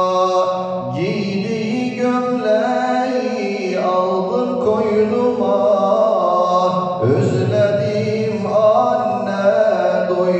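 A man singing a Turkish ilahi (Islamic hymn) into a handheld microphone, in long held and ornamented notes. The voice swoops upward in pitch about a second in and again about seven seconds in.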